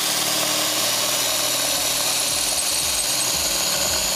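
Metabo BS18LTX Quick 18 V cordless drill running steadily with its impulse mode off, the bit cutting through a steel pipe.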